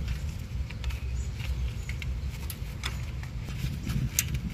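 Gloved hands handling a car's wiring plug and harness, making light scratching and scattered clicks, with a sharper click near the end, over a low rumble.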